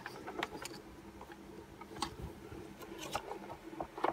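Scattered small clicks and scrapes of long-nose pliers and fingers working a rubber fuel line onto a carburettor's fuel fitting, over a faint steady hum.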